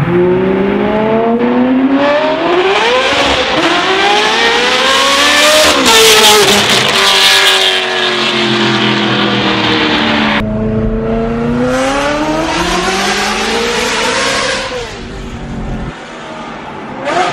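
Straight-piped Ferrari F430 V8 exhaust, very loud, accelerating hard through the gears: its pitch climbs and drops back at each upshift, over two separate pulls.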